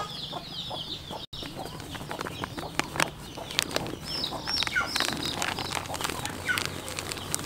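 Chickens clucking and small birds chirping, with scattered light clicks and rustles.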